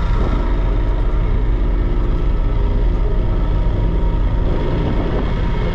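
Mercury 135 Optimax outboard, a V6 two-stroke, running steadily.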